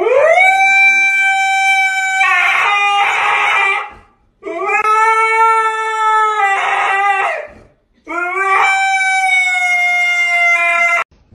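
Husky howling: three long howls in a row, each about three to four seconds, the first sliding up in pitch as it begins.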